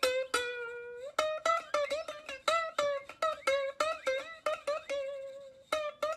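Background music: a bouncy plucked-string tune of short notes, a few a second, with a brief lull about five seconds in.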